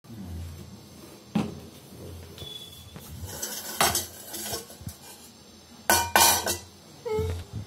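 Stainless-steel plate and spoon clattering against a bowl and the counter: several separate knocks and clinks with brief metallic ringing, the loudest cluster about six seconds in.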